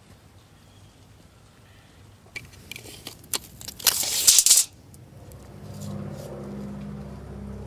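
Crackling and rustling as a tape measure is handled against dry pine straw, with a loud crunching burst about four seconds in. A steady low hum sets in near the end.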